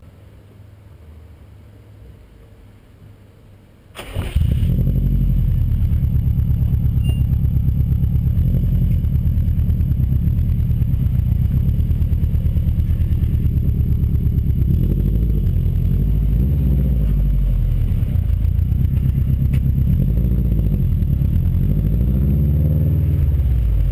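Subaru EJ207 turbocharged flat-four engine breathing through an aftermarket exhaust, starting about four seconds in and then running with a loud, steady, low rumble. Its pitch wavers a little in the second half as the car pulls away at low speed.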